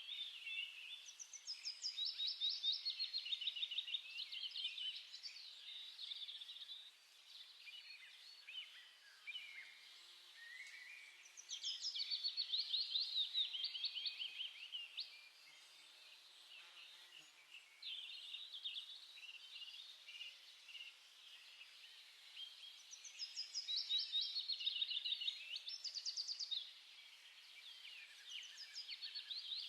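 Small songbirds chirping and singing, with three louder phrases of rapid repeated notes about ten seconds apart and softer chatter between them.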